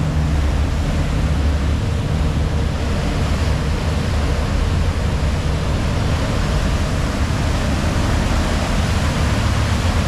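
Moving car ferry heard from the stern deck: the steady low drone of its engines under the rushing, churning water of the propeller wake, with wind, all at an even level.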